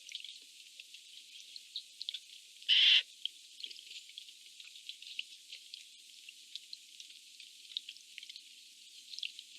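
A Eurasian jay gives one loud, harsh screech about three seconds in, over scattered faint short chirps and ticks from birds.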